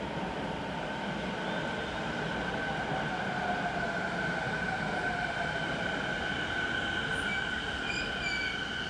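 Electric commuter train pulling into the station and slowing, its motor whine falling slowly in pitch under a steady high tone, with a few short brake squeaks near the end.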